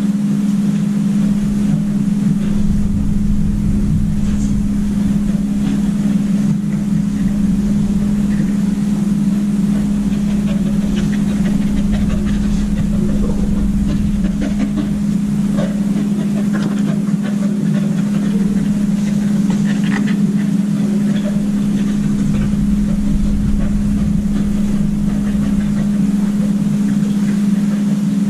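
Steady, loud mechanical hum on one low tone that never changes, with faint scattered taps and rustles over it.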